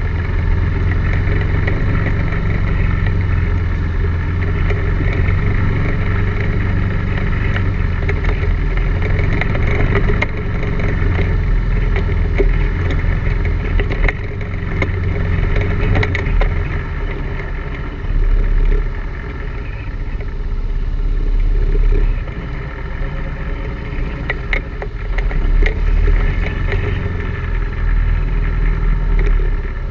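ATV engine running under load on a rough dirt trail, its level rising and falling with the throttle, with occasional sharp knocks from the bumps.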